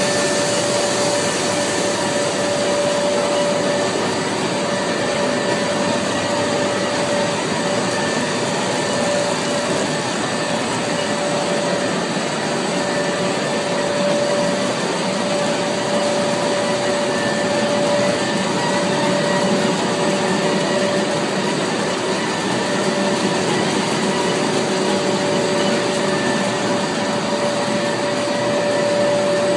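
Honghua HDLF-1000 multi-layer extrusion coating and laminating line running: a loud, steady whirring rush of machine noise with a few held hums on top, unchanging throughout.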